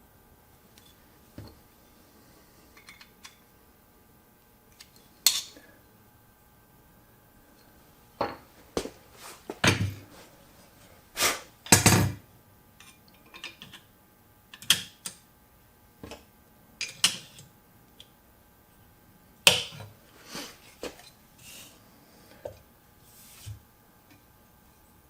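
Bench plane and its metal blade parts being handled and adjusted on a workbench: scattered knocks, clinks and short scrapes, loudest and most frequent in the middle.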